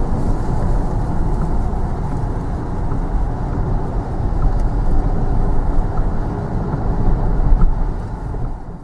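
KTM X-Bow sports car driving: a steady low engine and road rumble that swells in the middle and fades out near the end.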